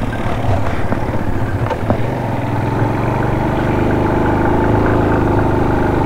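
Suzuki GS150 motorcycle's single-cylinder four-stroke engine running as the bike rides up a hill road. Its pitch rises steadily through the second half.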